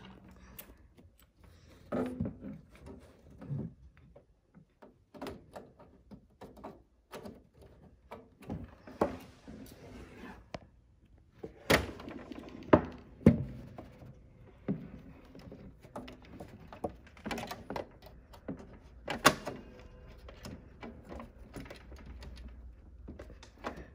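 Irregular knocks, clicks and thunks of a computer tower's metal case and its cables being handled while a cable is plugged into the back, with a few sharp, louder thunks around the middle and again about three quarters through.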